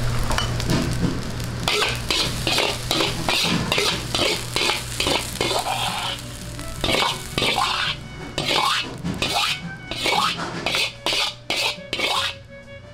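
Fried rice being stir-fried in a wok: a metal spatula scrapes and knocks against the wok in quick repeated strokes, about three a second, over the sizzle of frying.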